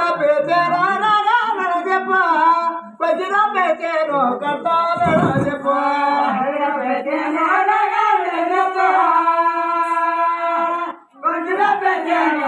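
A voice singing a folk-drama song in long, wavering, held lines, with a brief break about three seconds in and another near the end. A dull low thump sounds about five seconds in.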